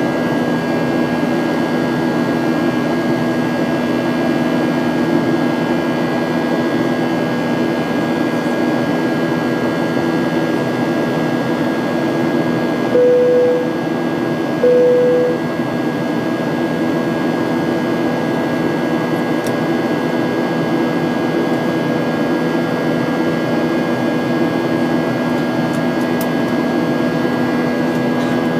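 Steady cabin drone of a Boeing 737-900ER in flight: its CFM56 jet engines and air noise with a constant hum. Two short, equal-pitched cabin chimes sound about halfway through.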